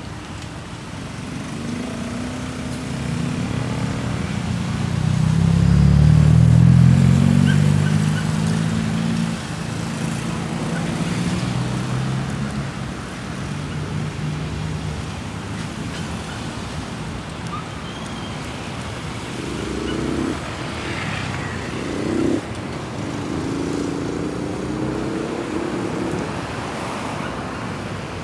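Street traffic: cars and motorcycles driving past, with one engine passing close and loudest about six seconds in.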